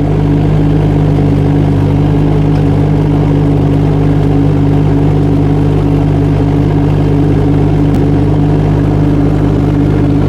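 Small three-cylinder Kubota D902 diesel of a 2-ton mini excavator running at a steady speed, with an even hum that neither rises nor falls.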